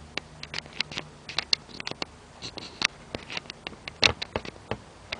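Irregular small clicks, taps and knocks of handling, as a camera is being set down and positioned on a work surface, with one louder knock about four seconds in.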